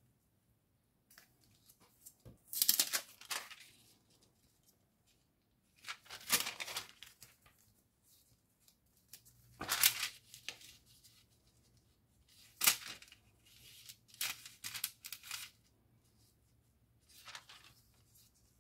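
Paper being handled during letter-making: a series of short, crackly paper rustles, about seven, spaced a second or more apart, the loudest about a third of the way in and near the middle.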